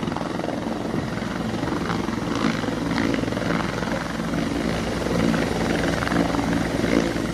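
Military turbine helicopter landing and sitting on its skids with rotors still turning at speed: steady rapid rotor chop under the engine's even whine.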